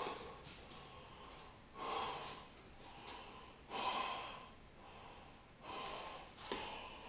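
A man breathing deeply and audibly, four slow breaths about two seconds apart.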